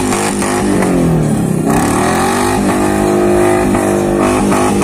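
Small pickup truck's engine revving hard while drifting on grass: the pitch dips and climbs again about a second and a half in, holds high, then drops near the end.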